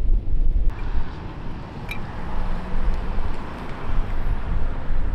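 Wind buffeting an outdoor microphone: a gusty low rumble, with an even rushing hiss that comes in abruptly just under a second in.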